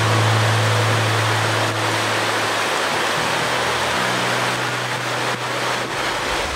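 Shallow mountain river rushing over rocks, a steady loud hiss of flowing water. Low held notes of background music run beneath it, changing a few seconds in.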